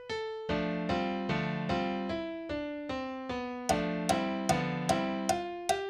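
Instrumental song intro on a keyboard with an electric-piano sound, playing repeated chords about two and a half a second with a melody that steps down and back up. About two-thirds of the way in, the chords become louder and brighter.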